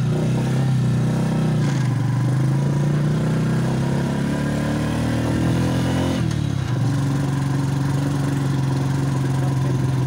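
Motorcycle engine of a Philippine tricycle (motorcycle with sidecar), heard from the sidecar, running under load on a climb. Its pitch rises for a few seconds, drops sharply about six seconds in, then holds steady.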